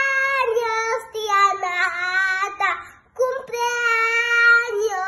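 A young boy singing, holding long, drawn-out notes in two phrases with a short breath about three seconds in.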